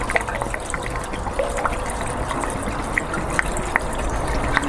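Two-stroke fuel mix being poured from a can into the fuel tank of an Atlas Copco Cobra petrol breaker: a steady trickle of liquid with small clinks of the can against the filler, some of the fuel spilling.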